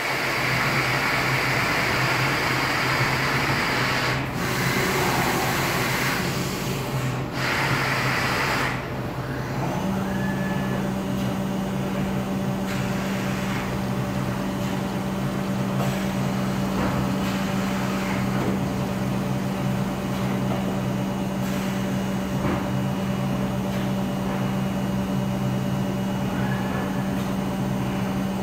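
Hermle CNC milling machine running with coolant on. A loud spray hiss lasts the first nine seconds with two short breaks, over a steady low machine hum. About ten seconds in the hiss stops and a second steady tone from the spindle comes in and holds.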